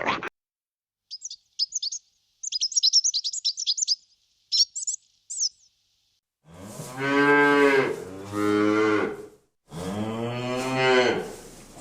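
A small bird chirping in quick, high notes, followed in the second half by a cow mooing in long, low calls.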